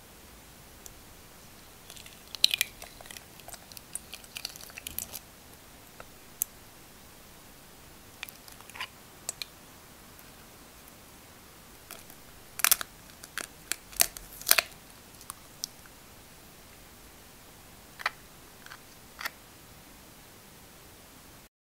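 Eggshell crackling as it is cracked and pulled apart by hand, then scattered light clicks and taps of the shell halves as the yolk is tipped between them to separate the white. The sharpest clicks come about halfway through.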